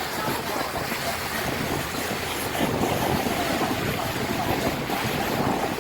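Steady engine hum and water noise aboard a moving boat, with wind on the microphone.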